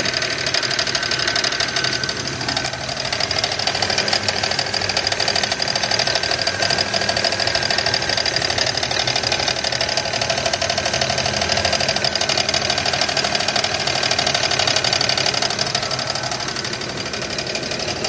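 GM 3800 Series II V6 idling with a steady, heavy knocking that is "pretty bad". The owner takes it for rod knock, though he is not sure the knock comes from inside the engine.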